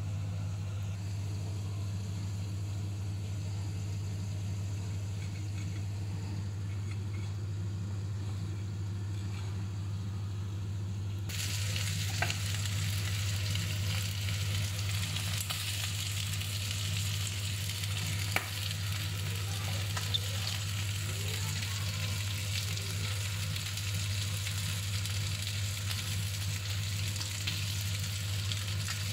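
Goat chops frying in a double-sided grill pan, with a steady low hum underneath. About eleven seconds in, a loud sizzle comes in suddenly, as when the pan is opened, and it carries on with a few sharp pops.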